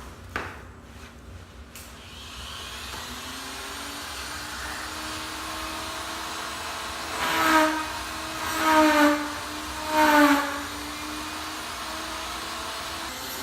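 Handheld Dremel rotary tool spinning up to speed and running steadily, then cutting slots into the bumper three times, each cut louder with the motor's pitch dipping under the load.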